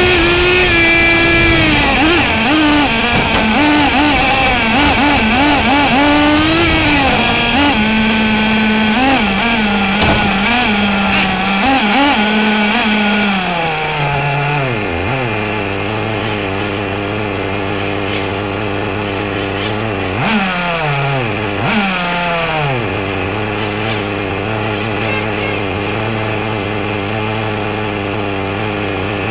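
Small nitro RC car engine heard onboard. It runs on and off the throttle with the pitch wavering up and down, then drops to a steady low idle about halfway through as the car comes to rest. Two short throttle blips come a little later.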